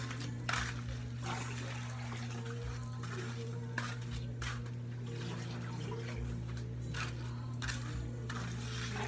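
Water splashing in several short bursts as it is poured and tipped from a plastic dipper, over a steady low hum.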